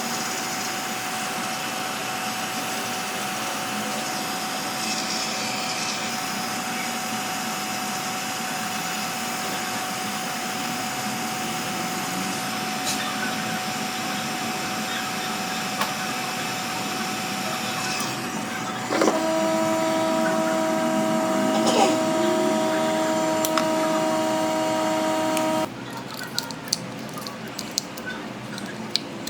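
Steady whirring of a small motor with a thin constant whine. About two-thirds of the way through, a louder hum with several tones joins it, then cuts off suddenly; a few light clicks follow.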